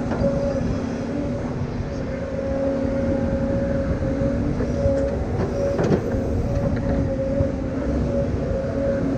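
Heavy earthmoving machine running steadily under work: a constant diesel drone with a steady whine over it, and a brief knock about six seconds in.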